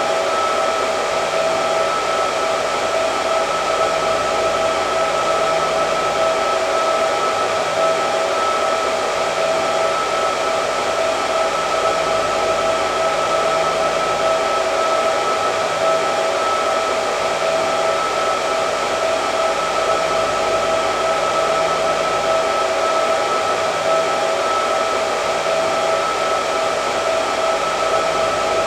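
Hair dryer running steadily: an even rush of air with a constant motor whine, without change.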